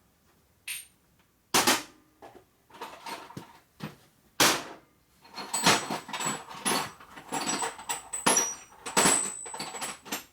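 Steel sockets clinking and clattering against each other and the toolbox as a handful is sorted through for the right size. There are a dozen or so sharp metal knocks with a high ring, thickest in the second half.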